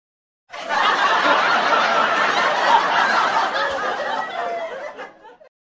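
Laugh track: a crowd of people laughing together, starting about half a second in and dying away just before the end.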